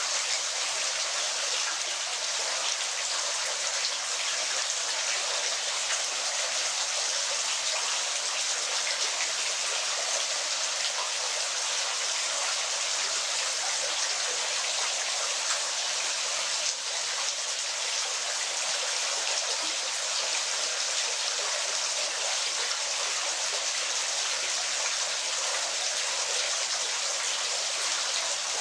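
Waterfall: a steady, unbroken rush of falling water, a bright hiss with almost no low rumble.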